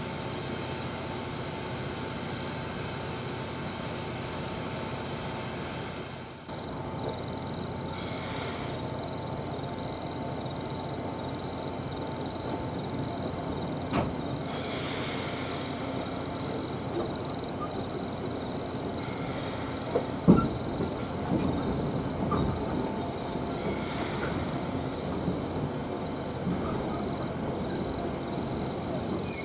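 Steam hissing steadily from the stalled C57 steam locomotive, cutting off about six seconds in. After that a thin steady high tone goes on, with short hiss bursts every few seconds and scattered knocks and creaks, denser from about twenty seconds in.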